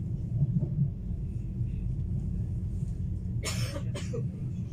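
Steady low rumble of an ESh1 Aeroexpress electric train running, heard from inside the passenger car, with two short sharp noises about three and a half seconds in.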